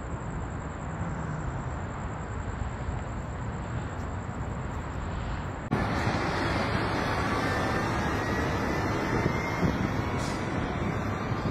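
Steady outdoor rumble and hiss with a faint high whine; about six seconds in it cuts abruptly to a louder rushing noise.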